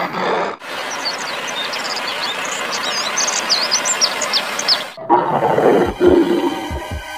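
Wild animal sound effects. Many short high chirps sound over a steady hiss, then near the end it changes to a deeper, rougher animal sound with a few low thumps.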